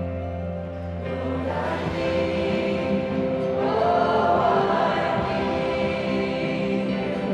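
A choir singing a slow worship song in long held notes.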